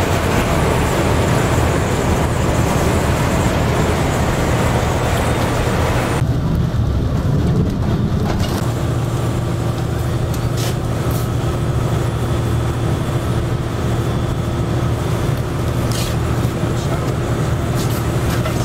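Inside a moving coach: a steady low engine drone with tyre and road rumble. The higher hiss drops away about six seconds in, and a few faint ticks and rattles come later.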